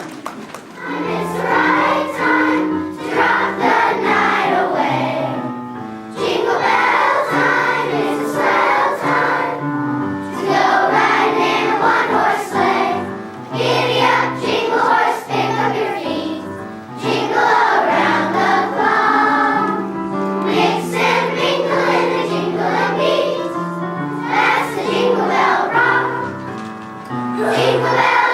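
Children's choir singing a song in unison, with instrumental accompaniment holding steady low notes beneath the voices.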